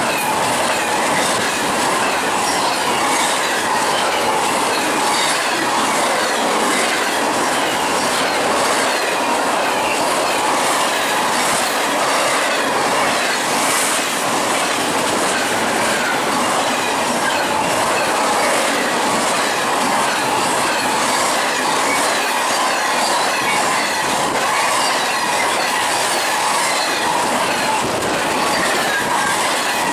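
Double-stack intermodal container train passing at about 70 mph. Steel wheels on the rails make a steady, loud rush, broken by repeated clicks as the wheels cross the rail joints.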